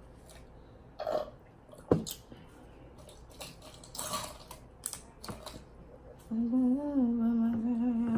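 King crab shell cracking and snapping as it is pried open by hand, a few sharp cracks spread over several seconds. Near the end a person hums one steady 'mmm' for about two seconds.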